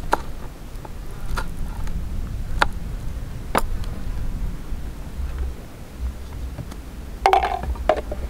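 A small camping gas stove being put together by hand: a few sharp metallic clicks about a second apart, then a louder rattle near the end. Wind rumble on the microphone underneath.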